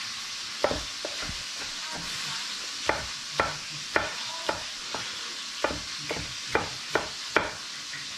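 Chef's knife slicing a green bell pepper into chunky strips on a wooden cutting board: an irregular run of short knife taps against the board. Under it, the steady sizzle of chicken searing in a pan.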